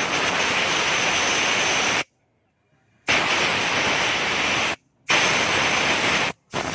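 Compressed-air blow gun hissing in four sharp-edged blasts of one to two seconds each, with a silence of about a second after the first. The air is drying wet ignition wires, where water from a pressure wash has got in and stopped the engine starting.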